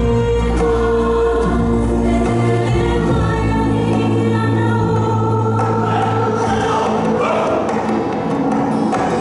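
Music with a choir singing long held notes over a sustained backing.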